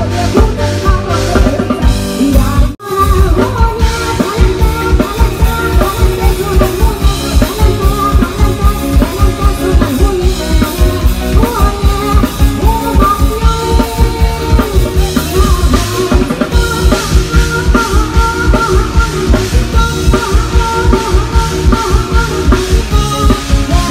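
Live band playing dance music with a steady drum-kit beat under pitched melody lines. The music drops out for a moment about three seconds in, then carries on.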